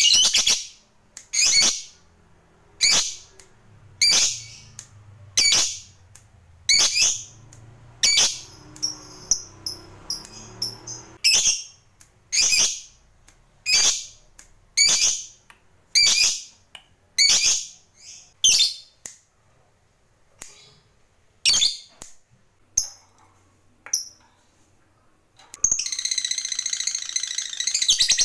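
Lovebird giving sharp, high single chirps about once a second. Near the end it breaks into a rapid, unbroken chattering trill, the long 'ngekek' prized in fighter lovebirds.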